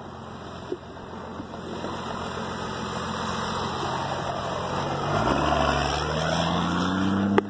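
Chevrolet pickup truck's engine running close by and growing louder, then revving up with a rising pitch about five seconds in as the truck accelerates away across gravel.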